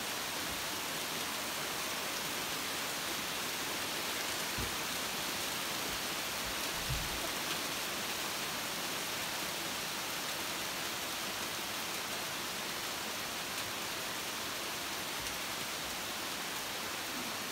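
Steady heavy rain falling on the leaves of trees and gardens, an even hiss throughout.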